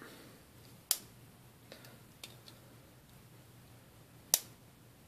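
Axis lock of a Ganzo G717-B folding knife clicking as the blade is worked open and shut, two sharp clicks about three and a half seconds apart with a few fainter ticks between; the lock is still a little tight and loosening up.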